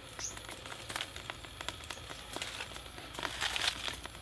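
Small twig fire in a makeshift stick stove crackling as it catches, with irregular sharp snaps and pops.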